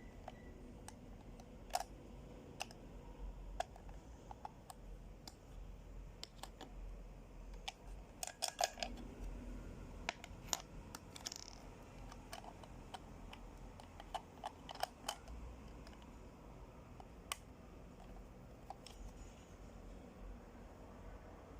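Scattered light clicks and taps from handling a plastic cat coin bank toy, with a quick cluster of clicks about eight seconds in, over a faint steady hum.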